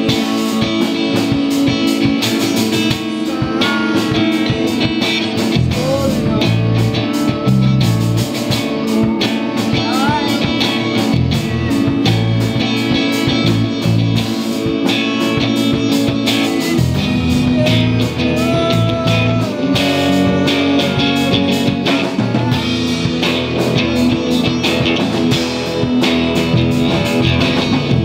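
Live rock band playing: electric and acoustic guitars over bass guitar and a drum kit, with a steady beat.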